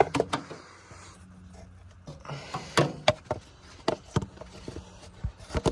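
An air filter and its housing being handled and fitted back into place in a car's engine bay: a scattered series of short plastic clicks and knocks with some light rubbing.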